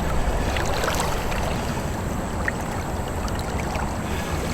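Steady rushing of river water around an anchored kayak, with a few faint small knocks.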